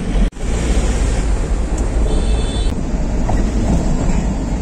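Steady road and engine noise inside a moving minibus, with wind rushing on the microphone. The sound cuts out for an instant near the start, and a brief high tone sounds about two seconds in.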